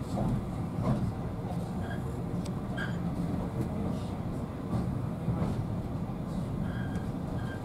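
Heritage railway compartment coach running along the track, a steady low rumble of wheels on rail with a few scattered clicks and short squeaks.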